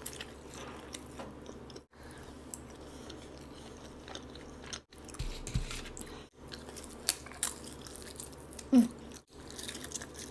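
Close-up chewing and biting of a fried chicken tender dipped in ranch: moist mouth sounds with sharp clicks and some crunching of the breading, broken by a few brief dropouts.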